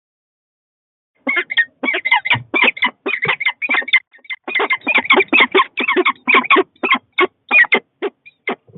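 Sound effect of a goose honking: a rapid string of short, harsh honks that begins about a second in and runs on with brief gaps.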